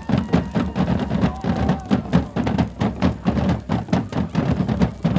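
Drumming on deep drums in a fast, even beat.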